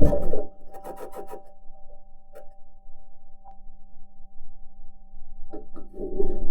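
Perseverance Mars rover's wheels and suspension grinding and clanking over the Martian surface, picked up by its entry, descent and landing microphone: loud grinding at the start and again about six seconds in, with scattered clicks between. A steady hum of several tones runs underneath, part of the rover's odd driving noise that may be electromagnetic interference from one of its electronics boxes.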